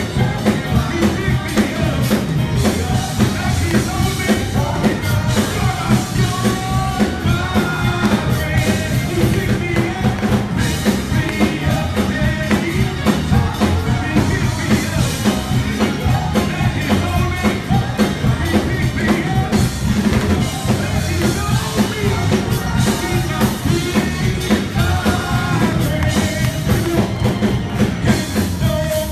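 Live church praise music: a drum kit keeping a steady beat under a band, with voices singing over it.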